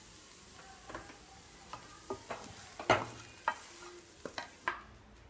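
Wooden spatula scraping and knocking against a frying pan as cooked potato stuffing is scooped out, a series of irregular scrapes with the loudest knock about three seconds in. A faint sizzle from the hot pan runs underneath and fades near the end.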